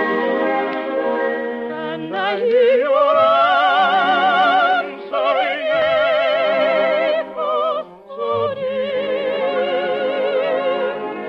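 An operatic soprano singing long high notes with a wide vibrato over an orchestra, sweeping up to a high note about two seconds in, with brief breaths between phrases.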